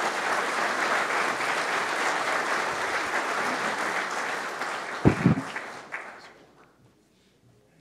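Audience applauding at the end of a talk, steady at first and dying away about six seconds in, with one brief louder sound about five seconds in.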